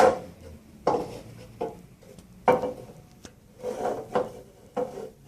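Hard plastic parts of a Kuvings cold-press juicer being fitted and handled: about half a dozen short, irregular knocks and clacks. The motor is not running.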